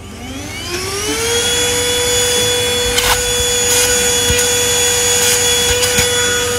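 IUIGA cordless handheld mini vacuum cleaner switched on: its motor spins up with a rising whine over about a second, then runs steadily at a high, even whine. A click sounds about halfway through.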